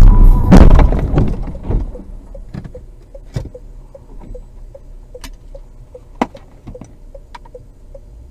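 Car collision at road speed: a loud crash of metal and plastic that dies away over about a second and a half. A faint regular ticking follows at about three a second, with a few separate sharp clicks.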